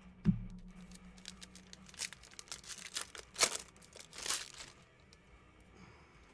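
Foil wrapper of a Mosaic basketball trading-card pack being torn open and crinkled by hand, in a run of sharp rips and crackles in the middle of the stretch. A dull thump comes just before them, near the start.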